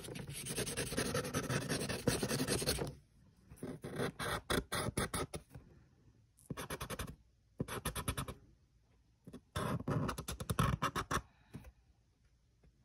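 Black marker scribbling quickly on paper, rapid back-and-forth strokes scratching the page. It runs on for about the first three seconds, then comes in short bursts with pauses between.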